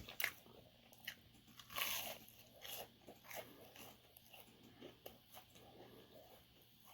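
Mouth-close biting and chewing of crisp food: a few crunches, the biggest about two seconds in, then softer chewing clicks.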